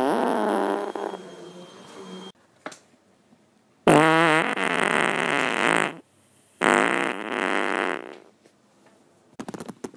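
Human farts: one dies away in the first couple of seconds, then a loud, buzzing fart wavering in pitch starts suddenly about four seconds in, breaks off, and resumes for another second and a half.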